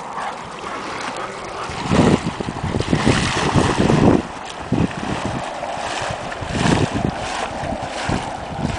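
Water splashing and churning as a paddle ski is hand-paddled through shallow water with a dog swimming close behind. From about two seconds in, gusts of wind buffet the microphone.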